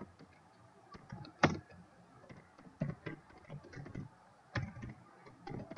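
Typing on a computer keyboard: faint, irregular keystrokes, with one sharper key strike about a second and a half in.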